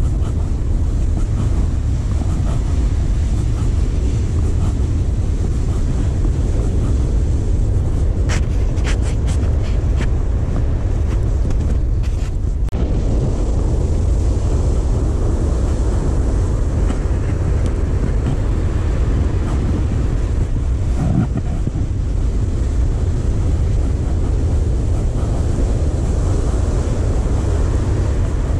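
Steady low rumble of wind and surf on the camera microphone along the beach, with a few faint clicks about eight to ten seconds in.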